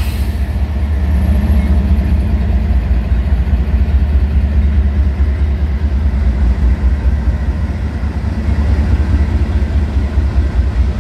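CSX GE ES40DC diesel-electric locomotives at close range, their engines giving a loud, steady low rumble.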